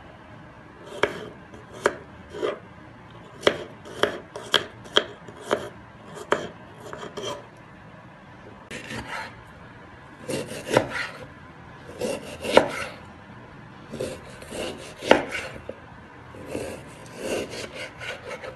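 Kitchen knife cutting on a wooden chopping board. First come quick sharp knocks as garlic cloves are chopped. Then, from about halfway, come longer rasping strokes as the knife slices through raw beef, many ending in a knock on the board.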